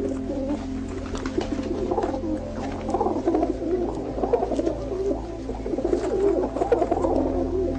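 Many birds calling at once, overlapping wavering calls throughout, over a steady low hum that shifts in pitch twice.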